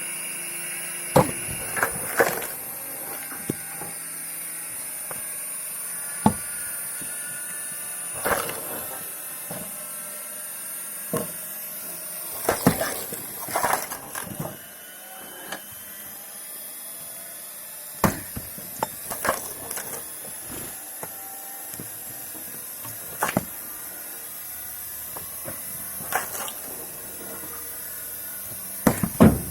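High-pitched whine of a small screw-cone log splitter driven by a washing-machine motor running at speed, with about a dozen irregular sharp cracks and knocks of logs being split.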